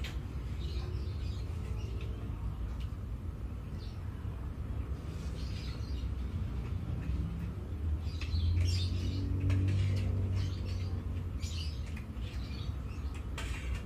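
A person eating noodles from a stainless steel colander: spoon clicks against the metal and short slurps and mouth sounds, over a steady low rumble that swells for a couple of seconds past the middle.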